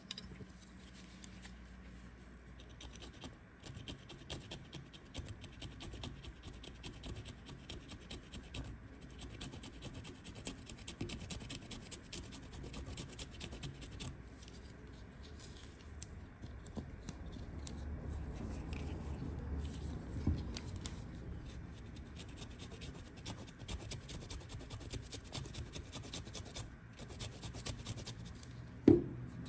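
Fresh ginger root being grated: rapid, continuous scratching of the root against a grater's teeth. A single sharp knock comes near the end.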